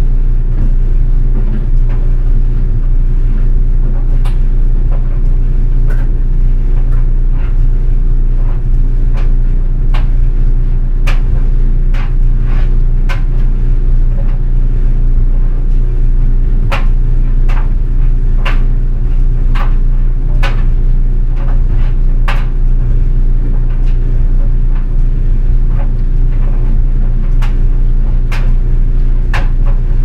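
GE Spacemaker DSKS333E laundry dryer running: a steady low hum from the motor and tumbling drum, partly picked up through a contact mic on the front panel. Over it come sharp metallic clicks and knocks about once a second, thickest in the middle, as the metal button and zipper of a pair of jeans strike and scrape the drum.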